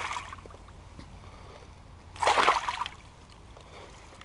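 Hooked pike thrashing at the surface of shallow river water. A splash is fading at the start, then one loud splash comes a little over two seconds in.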